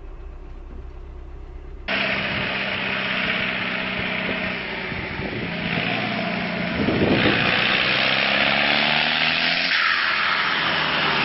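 Farm tractor's diesel engine running hard at high throttle, getting louder about seven seconds in as the tractor comes closer. Before it, about two seconds of a quieter, muffled rumble from the end of the previous clip.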